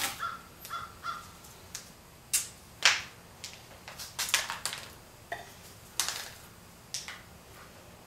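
Green masking tape being pulled off its roll and torn into strips: a series of short, rasping rips, irregularly spaced, with the loudest about three seconds in.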